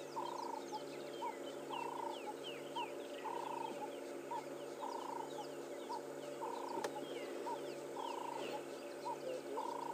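Quiet bush ambience: a bird calls over and over in a steady pattern of short and longer notes, about twice a second, while other birds chirp faintly higher up. A low steady hum runs underneath.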